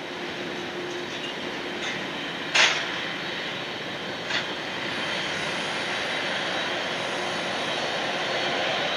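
Jet airliner's engines running as it moves along the runway: a steady rushing noise that grows slightly louder, with a thin high whine coming in about halfway. A sharp knock comes about two and a half seconds in, and a smaller one near the middle.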